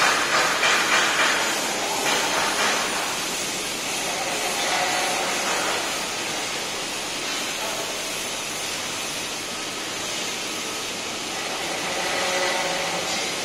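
Laser cutting machine at work: a steady hiss, a little louder and uneven over the first few seconds and again near the end.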